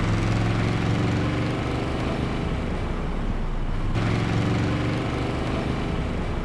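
Motor vehicle engines running at low speed close by, a steady engine drone with a different engine taking over about four seconds in.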